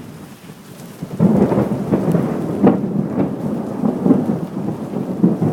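Thunder from a nearby lightning strike breaks in suddenly about a second in. It carries on as a loud rolling rumble with several sharper peaks, over steady rain.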